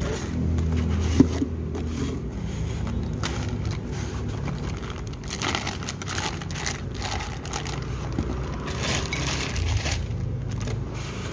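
Clear plastic bag crinkling and foam packaging rustling as a motorcycle cylinder block is unwrapped and lifted out, in irregular bursts.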